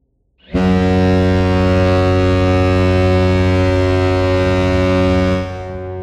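NHL arena goal horn sounding one long, deep, steady blast of about five seconds, starting about half a second in and dropping off in level near the end.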